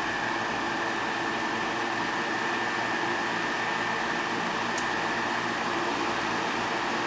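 Toastmaster 16-inch table fan, model 4516, running steadily on its high speed setting: an even rush of air with a faint, steady high whine.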